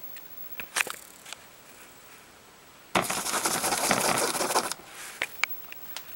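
Newspaper cage lining rustling and crinkling for about two seconds near the middle, the loudest sound here. Scattered sharp clicks and taps come before and after it.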